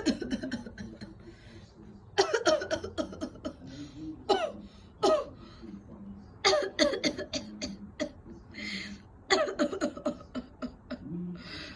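A person faking coughs in repeated short fits, each fit several harsh coughs in quick succession, spaced a second or two apart.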